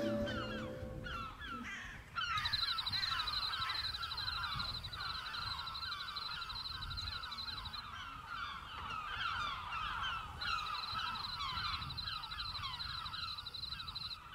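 Cicadas buzzing in a pulsing, even drone that starts about two seconds in, breaks off for a couple of seconds in the middle and starts again. Throughout, many small birds chirp in short, falling notes.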